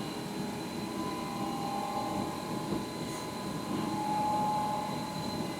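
Dirty gear oil draining from a Mercedes Sprinter's rear differential into a container, a steady pouring noise with a faint steady hum behind it.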